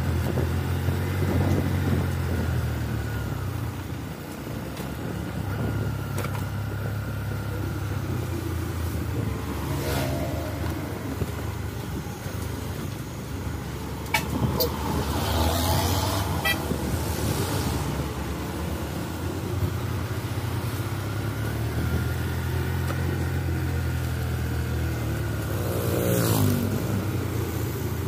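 Mitsubishi Canter light truck's diesel engine pulling hard in a low gear up a steep incline, its note rising and falling as the driver works the throttle.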